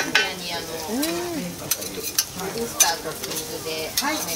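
Close-up eating sounds: chewing a mouthful of stir-fried beef intestine (gopchang) with bean sprouts, with scattered wet clicks and smacks. A short rising-then-falling hummed 'mmm' comes about a second in, over a steady sizzling hiss.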